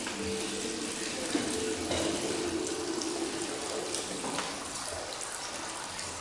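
Shakuhachi played softly: a low held note fades out over the first couple of seconds, leaving a breathy, airy rush of blown air.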